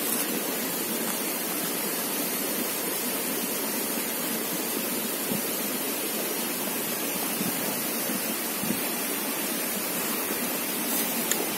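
Steady rushing of flowing creek water, an even hiss with a few faint brief taps.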